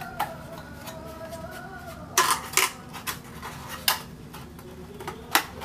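Paperboard lip balm display box being folded by hand: a handful of short, sharp crinkles and snaps as its flaps and creases are bent in, the loudest two a little past two seconds in.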